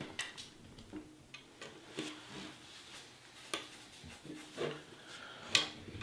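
Faint, scattered small clicks and taps of plastic and metal parts as a GTX 980 Ti graphics card's shroud is handled and its LED connector is plugged in on a wooden table, the sharpest click coming near the end.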